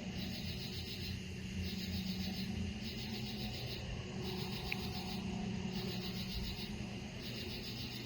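Night insects calling in a steady rhythm of trilled bursts, about one a second, over a low steady hum.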